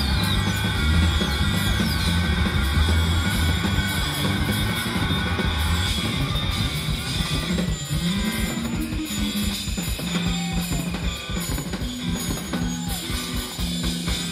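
Rock band playing live: drum kit and electric guitar over a bass line of held low notes that shift every second or two.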